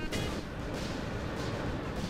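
Wind buffeting the microphone: a rough, low rumbling noise with irregular gusty thumps.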